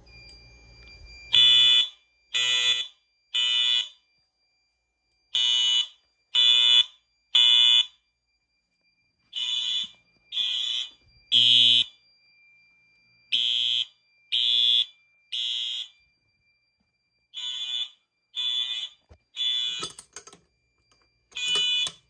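Fire alarm horns sounding the temporal-three evacuation pattern: three short blasts about a second apart, then a pause, repeating over and over. A faint steady high tone carries on between the blasts.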